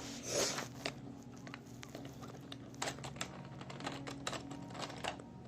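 Scattered light clicks and taps of small die-cast toy cars being handled and moved, with a brief rustle about half a second in, over a steady low hum.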